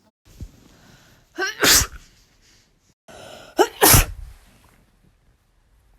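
A person sneezing twice, about two seconds apart: each time a short sharp voiced intake of breath, then a loud explosive sneeze.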